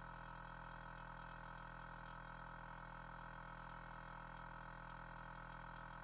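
Small air compressor of an air-horn kit running steadily, pumping up its air tank: a quiet, even hum that sounds almost like a vacuum pump.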